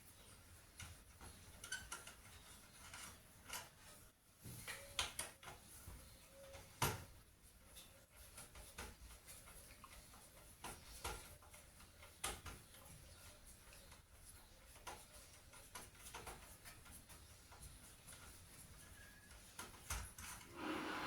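Scattered small clicks and knocks of metal and plastic computer parts being handled and unfastened during disassembly, with a few sharper knocks among them.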